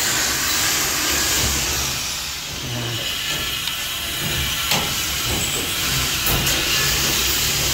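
Steady hissing noise with a few light knocks or taps.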